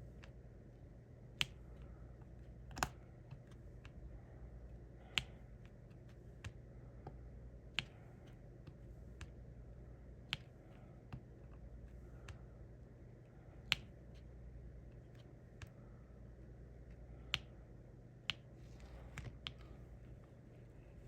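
Sharp, irregular clicks of resin diamond-painting drills being pressed onto the canvas with a drill pen, about one every second or two, with a quick cluster near the end, over a faint steady low hum.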